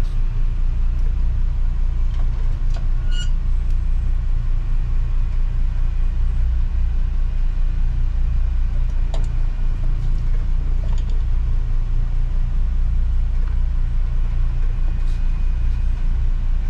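A boat's engine running steadily under way, a continuous low drone with a few faint clicks over it.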